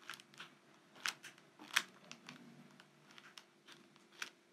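Baking-paper piping bag filled with yogurt crinkling faintly as it is squeezed by hand, a scatter of soft paper crackles.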